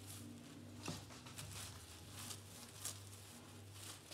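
Wooden rolling pin rolling out dough between sheets of plastic film: a faint, repeated rustle of the plastic with each stroke, a couple of sharper crackles among them, over a low steady hum.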